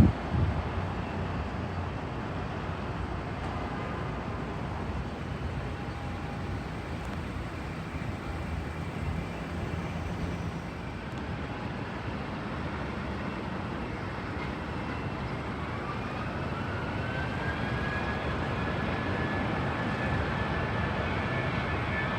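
Jet airliner engines: a steady rumbling roar, and about two-thirds of the way in a whine rises in pitch and then holds while the sound slowly grows louder.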